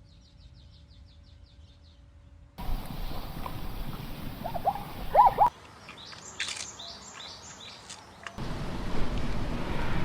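Several short wildlife recordings spliced together: a fast run of high chirps, then a few short rising-and-falling calls over a noisy background, then a cluster of sharp chirps, ending in a steady outdoor hiss. The calls are bird-like.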